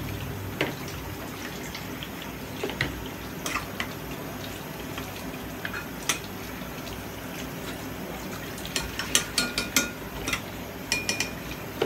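Metal ladle stirring a stew of oxtail and vegetables in a stainless steel pot, with scattered clinks against the pot and a quick run of ringing clinks from about nine seconds in. A steady hiss runs underneath.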